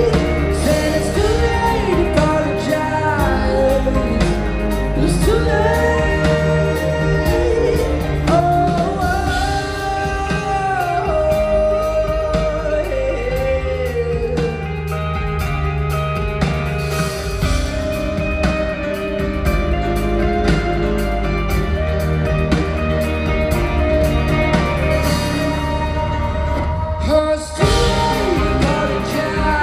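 A pop-rock band playing live in a large hall, with a lead vocal gliding over drums, guitar and keyboards. The music dips briefly near the end before carrying on.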